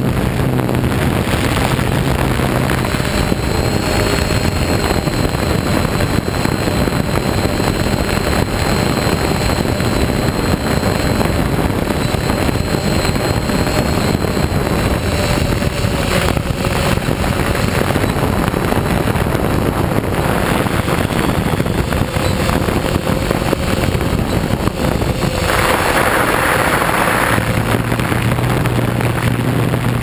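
Octocopter's electric motors and propellers running steadily, recorded on the craft itself, with a faint high whine and wind rushing over the microphone. A brief surge of hiss comes a few seconds before the end.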